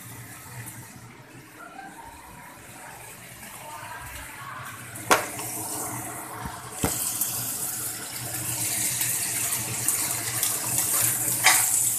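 Chicken frying with garlic in oil in a wok: a sizzling hiss that swells and grows louder about seven seconds in. Two sharp knocks come about five and seven seconds in.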